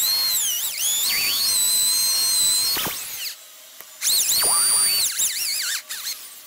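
Corded electric drill boring into a hardwood block: a high-pitched motor whine that sags and recovers in pitch as the bit bites. It stops about three seconds in, starts again about a second later, and winds down near the end.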